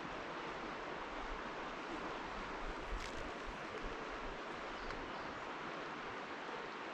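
Steady rushing outdoor background noise, even throughout, with a faint tick about three seconds in.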